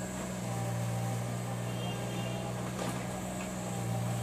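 Bobcat E20 mini excavator's diesel engine running steadily with a low hum while the arm and bucket work, with a single knock about three seconds in.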